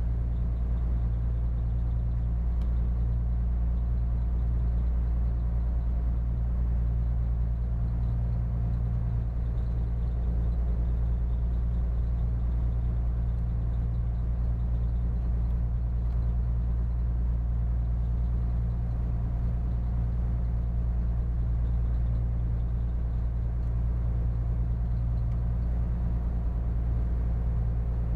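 Steady low drone of a spits barge's diesel engine running under way, with an even hum that does not change.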